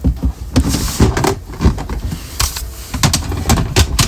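Irregular plastic clicks, knocks and clatter as hardwired smoke alarms are handled and pulled apart.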